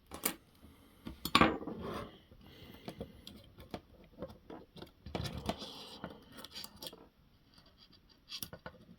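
Small RC crawler parts clicking, clacking and scraping as the rear axle and its links are worked into the chassis by hand, with a sharper clack about a second and a half in and a stretch of rubbing near the middle.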